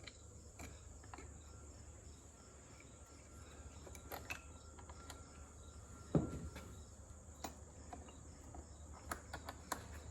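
Quiet background of insects chirring, with scattered light clicks and one louder knock about six seconds in.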